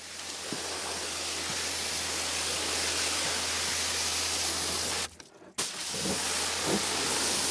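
Pressure washer jet hissing as it blasts mud out of a pickup truck bed, over a steady low hum. The sound breaks off for about half a second about five seconds in, then resumes.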